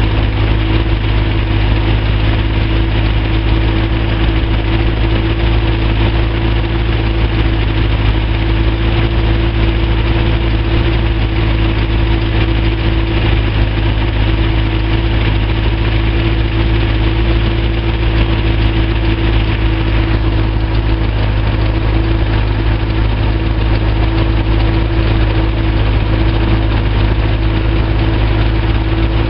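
Small hovercraft's engine and ducted fan running at a steady speed close to the microphone: a constant engine hum over a wide rush of air, with no change in speed.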